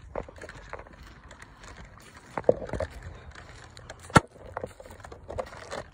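Footsteps crunching on dry ground covered with pine needles and cones, as irregular crackles and snaps, with one sharp click a little after four seconds in.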